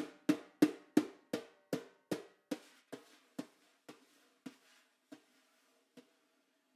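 Snare drum struck with single strokes that slow down and die away. The gaps grow from about a third of a second to nearly a second, and the drum's ring hangs faintly between the last strokes.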